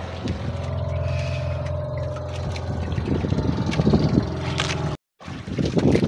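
Small outrigger boat's (bangka) engine running steadily with a low hum, over the wash of water; the sound drops out for a moment near the end, then turns to rougher splashing and wind noise.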